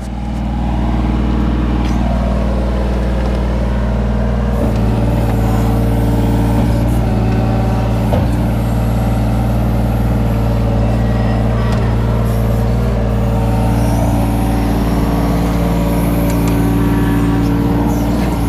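Kobelco SK17SR mini excavator's diesel engine running under load with its hydraulics working the boom and bucket while digging. The engine note steps up about four and a half seconds in and then holds steady.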